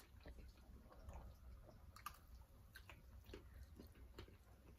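Faint chewing of alligator sausage, with a few soft, scattered mouth clicks as it is bitten.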